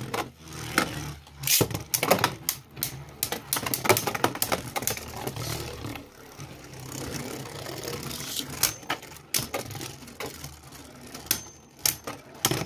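Two Beyblade Burst spinning tops, Union Achilles and Super Hyperion, battling in a plastic stadium: a steady whirring hum of the tops spinning on the stadium floor, broken by many irregular sharp clacks as they collide with each other and strike the stadium walls.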